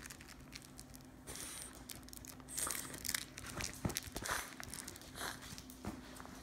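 French bulldog biting and tugging at a plush toy held in a hand, with irregular rustling, scuffing and crinkling of the fabric and clicks of teeth, loudest in a flurry through the middle.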